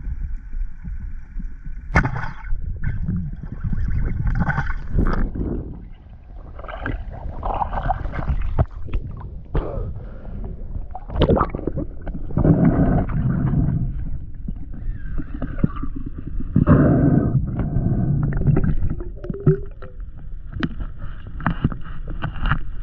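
Muffled underwater sound picked up by a diving camera in a river: irregular gurgling and water movement, with a few sharp clicks. A faint steady tone stops about two seconds in.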